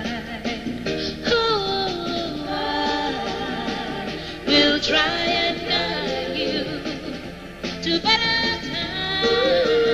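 Female vocal trio singing a soul/R&B song in harmony with a band backing them, holding a long note near the end.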